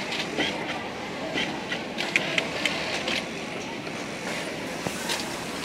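Steady mechanical din of industrial sewing machines running in a garment workshop, with scattered short sharp clicks and ticks.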